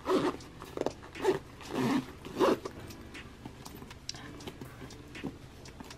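Fabric and a fabric packing cube rustling as baby clothes are pushed tightly into it: a handful of short swishes in the first two and a half seconds, then only faint light clicks and handling noise.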